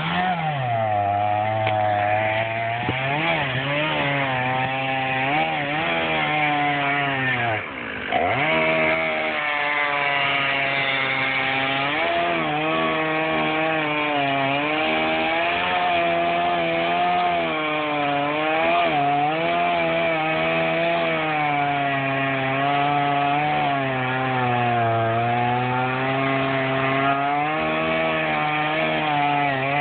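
Two-stroke gas chainsaw running under load, cutting through a tree stump, its engine pitch wavering as the chain bites the wood. About eight seconds in it briefly drops off and revs back up.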